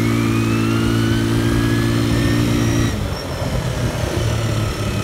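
Small Kymco-built four-stroke ATV engine, fitted with a replacement manual-choke carburetor rejetted to a 40 pilot and 95 main jet, held at high revs under throttle, then dropping back toward idle about three seconds in. The owner says this jetting gives the best throttle response, with no hesitation.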